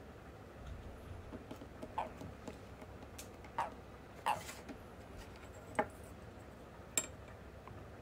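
Handling noises: about five short, scattered taps and clicks as hands turn a toad over and pick a steel ruler up off a wooden table.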